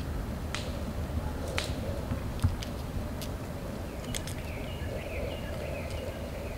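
Outdoor ambience: sharp dry clicks about once a second, then a string of short high chirps from about four seconds in, over a steady low wind rumble.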